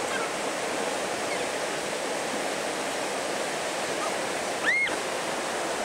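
Whitewater rapid rushing steadily: churning standing waves in a desert river. Near the end a brief high-pitched call rises and falls over the roar.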